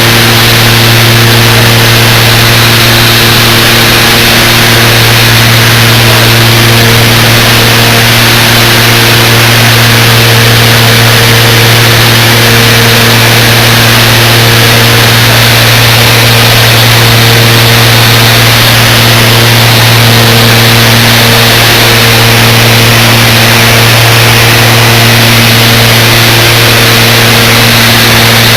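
Loud, steady engine drone: a constant low hum with a few steady higher tones and a hiss over it, unchanging throughout.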